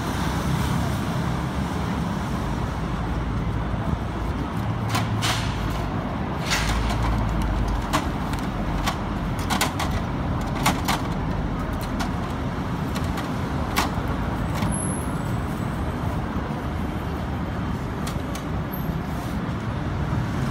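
Steady rumble of road traffic, with about a dozen sharp clicks and taps from utensils at the pancake griddle pans scattered through the middle of the stretch.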